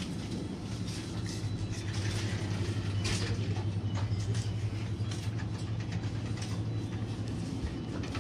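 Steady low electrical hum of supermarket refrigerated display cases, with a few light clicks and clatters from cans in a plastic shopping basket.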